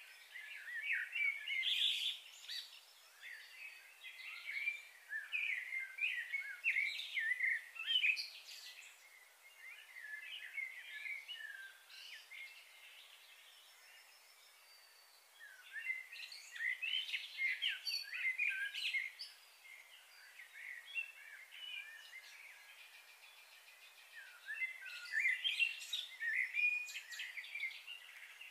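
Small birds twittering and chirping in three bouts: a long one at the start, a shorter one in the middle and another near the end, with quieter stretches between.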